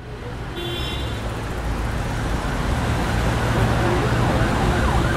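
Street traffic noise with a steady low rumble. Near the end a siren starts up, wailing quickly up and down.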